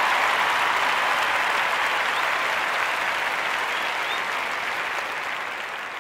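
Applause from a crowd, a dense steady clapping that slowly fades out.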